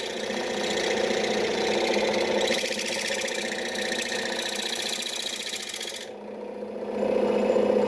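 Delta/Rockwell 40-440 scroll saw running with a needle file in place of the blade, the file reciprocating rapidly against a small metal part in a steady rasping chatter over the machine's hum. The high hiss drops out briefly about six seconds in, then comes back.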